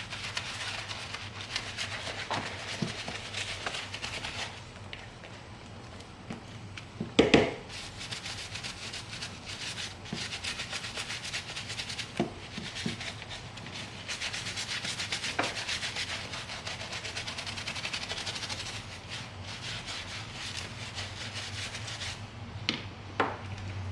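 Wilson leather ball glove being scrubbed in quick repeated strokes, a steady scratchy rubbing on the leather. There is one knock about seven seconds in and a few light taps.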